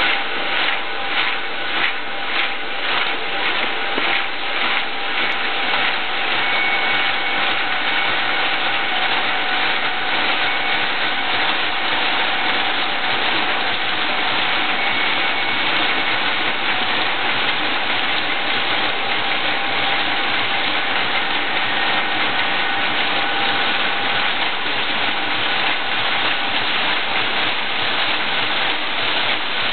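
Blending screw auger running: a steady mechanical rush with faint whining tones, pulsing in an even beat for the first few seconds before settling.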